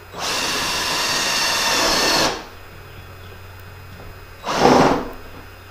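Cordless drill boring holes through a plastic kayak deck: one steady run of about two seconds, then a shorter burst about four and a half seconds in.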